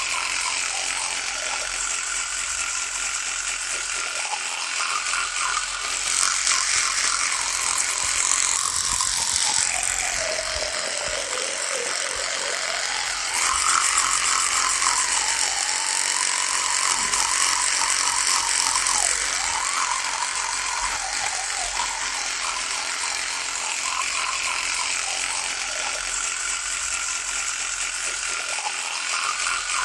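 Electric toothbrush buzzing continuously with a hissy, rattling edge. Its pitch sags well down about a third of the way through, then climbs back up and wavers.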